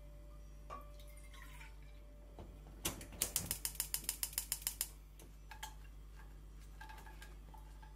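Gas hob burner's spark igniter clicking rapidly, about six clicks a second for two seconds, as the burner is lit.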